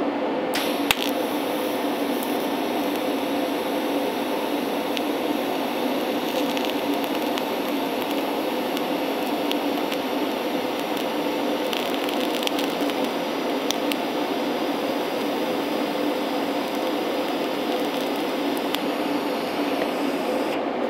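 TIG welding arc brazing a radiator tank with silicon bronze filler rod: a steady hiss and buzz that starts about half a second in and stops near the end, with a few small ticks and pops as the bronze melts in.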